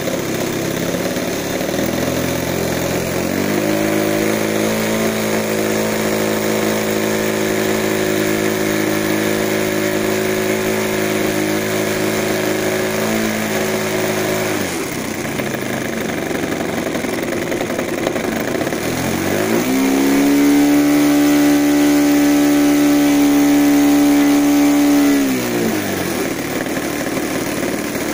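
Model aircraft engine and propeller of a large scale Macchi racer run on the ground while being run in and tuned. It rises from idle to a steady speed about three seconds in and drops back to idle about halfway. It then runs up to a higher, louder speed for about five seconds and falls back to idle near the end.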